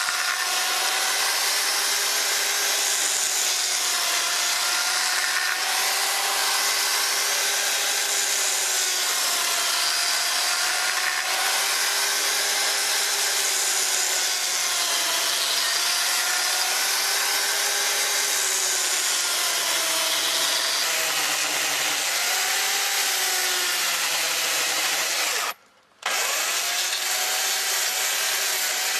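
Two-stroke Stihl chainsaw running under load as it carves a notch into a round log, its engine pitch slowly wavering up and down as the bar bites into the wood. The sound drops out briefly for about half a second near the end, then resumes.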